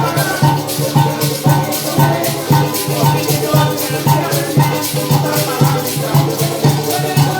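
Parang band playing an instrumental passage between sung verses: strummed strings over a bass that pulses about twice a second, with shakers keeping a steady beat.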